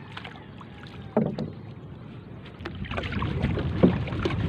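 Paddling a small outrigger canoe (bangka): paddle strokes through the water with a few sharp knocks, likely the paddle against the hull. The water sound grows louder and busier in the second half.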